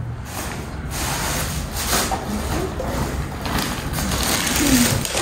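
Plastic bag rustling and crinkling as hands rummage through it, a dense crackle that builds toward the end.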